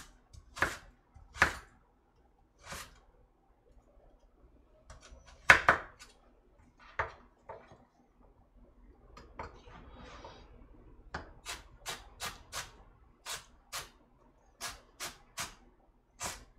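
Kitchen knife cutting a carrot on a cutting board: scattered single knocks of the blade on the board, the loudest about five seconds in. Near the end the carrot is being minced, with a steadier run of chops, about two to three a second.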